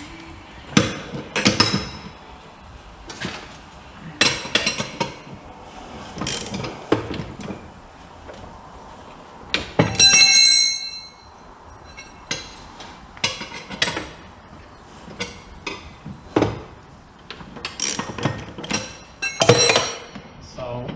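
Hand tools and steel mower parts knocking and clicking irregularly as parts are taken off, with one loud ringing metallic clang about halfway through.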